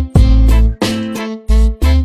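Background music: an upbeat track with plucked strings or guitar over a strong, steady bass beat.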